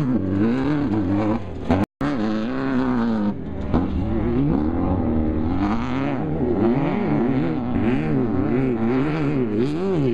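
Off-road race vehicle engine revving hard, its pitch rising and falling again and again as the throttle is worked, with a short break just under two seconds in.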